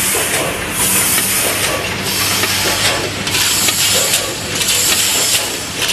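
Multihead weigher running with in-shell pistachios: a dense rattling hiss of nuts sliding over the vibrating steel feed pans and dropping into the weigh hoppers, swelling and easing roughly once a second over a steady low hum.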